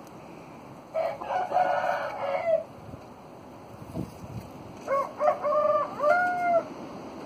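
Roosters crowing: one crow about a second in, and a second near five seconds in, broken into several syllables.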